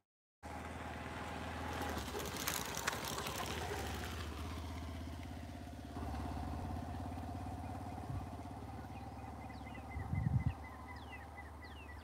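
An engine running steadily with a low hum. Near the end a bird calls in quick, repeated short chirps, about three a second.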